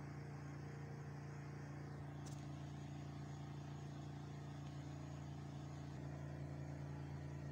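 Steady low hum made of several constant tones, with one faint click about two seconds in.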